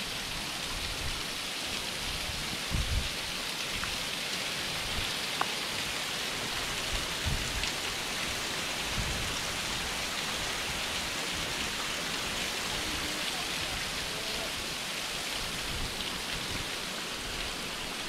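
Waterfall: a thin cascade of water falling down and splashing onto rock, making a steady hiss.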